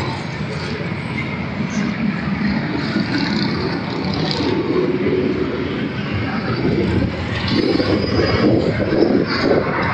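Road traffic noise from cars passing and a column of motorcycles approaching. The low engine rumble grows louder in the last couple of seconds.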